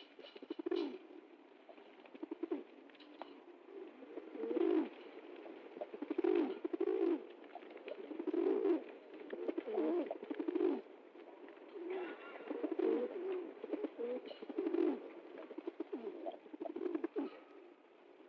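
Pigeons cooing: a steady series of low, throaty coos, one every second or two.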